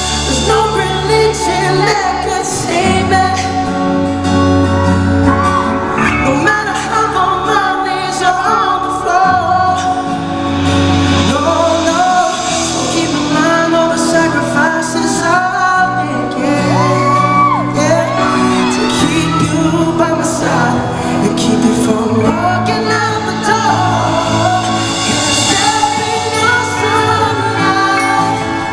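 Live concert performance of a slow pop ballad: a singer holding and bending long notes over a band with a steady bass line, with the crowd shouting and whooping in a large hall.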